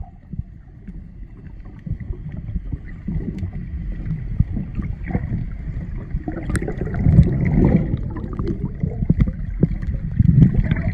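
Muffled water sloshing and gurgling picked up by a camera held underwater, with irregular low thumps and a faint steady high tone, growing louder from about six seconds in.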